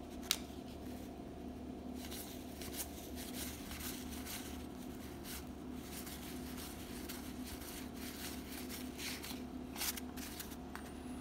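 1991 Donruss baseball cards being thumbed through one at a time by hand: faint slides and flicks of card against card, with a sharper click just after the start. A steady low hum runs underneath.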